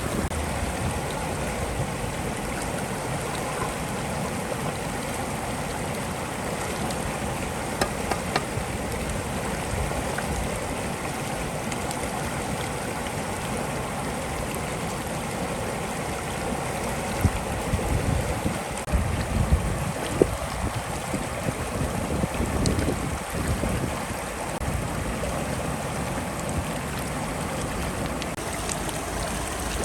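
Steady rushing and trickling water, like a stream, with some low rumbling and a few brief knocks in the second half.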